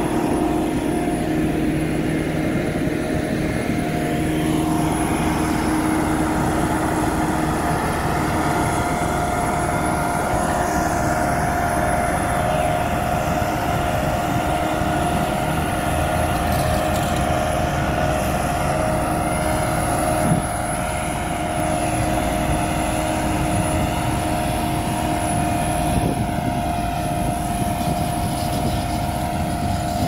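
Diesel engine of a Bomag BW 211D-40 padfoot (sheepsfoot) roller running steadily as it compacts loose laterite, a constant drone with a steady hum over it.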